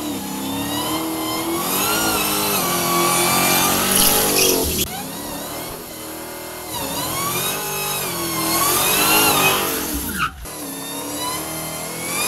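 Dodge Challenger SRT's V8 revving, its pitch climbing and falling several times with a high whine above it, and a brief sudden drop about ten seconds in.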